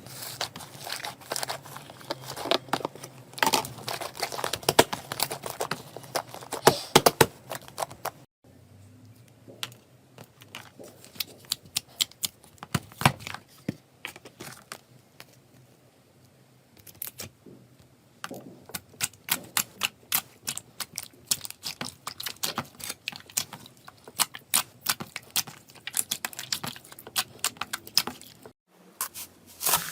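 Slime being squeezed and worked by hand, giving rapid crackling and popping clicks in irregular runs; the sound drops out briefly twice, about eight seconds in and near the end.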